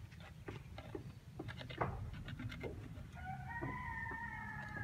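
Sharp clicks and taps of a metal tool prying at the plastic caps of oil jugs. About three seconds in, a rooster crows once, a long call that falls slightly in pitch at its end.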